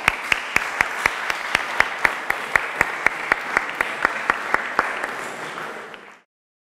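Audience applauding, with one nearby clapper standing out in sharp, even claps about four times a second. The applause fades and stops near the end.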